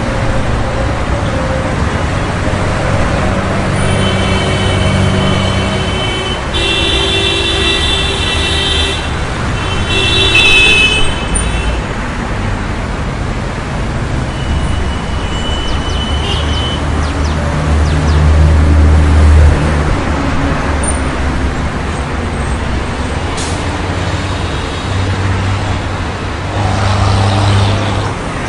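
City street traffic: a steady wash of engines and tyres, with horns honking in three stretches during the first ten seconds or so. A heavier vehicle passes louder about two-thirds of the way through.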